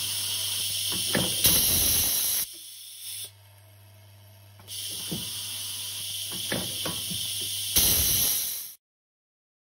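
Vibratory bowl feeder of a turned-contact crimping machine running with a steady low hum, brass contacts clicking as they travel along its track, over a constant compressed-air hiss. Louder air blasts come about a second and a half in and again near the end. The hiss drops away for about two seconds in the middle, and everything cuts off suddenly shortly before the end.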